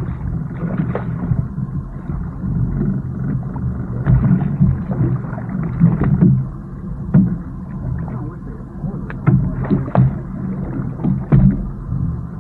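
Low, steady rumble around a small fishing boat on the water, with water splashing at the hull and scattered short knocks, busiest midway and again near the end.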